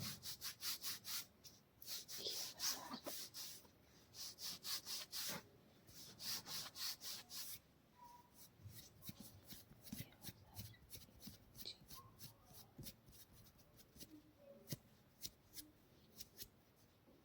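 Hands rubbing briskly over skin in a massage, quick strokes about five a second in four short bursts, followed by lighter scattered taps and brushing.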